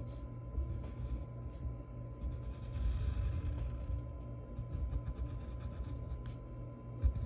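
Graphite pencil scratching across paper in a run of short, uneven strokes as an outline is drawn.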